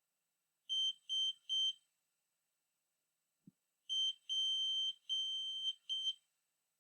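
Piezo buzzer on an Arduino Uno beeping Morse code in a steady high-pitched tone: three short beeps (the letter S), then short, long, long, short (the letter P). A faint click sounds between the two letters.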